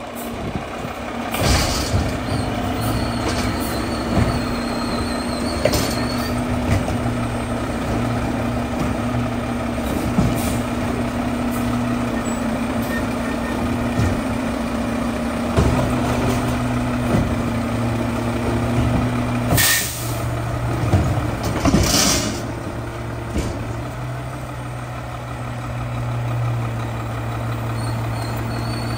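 Mack LR garbage truck's diesel engine running as the truck pulls up and sits at the curb, with several sharp air-brake hisses, the loudest about twenty seconds in.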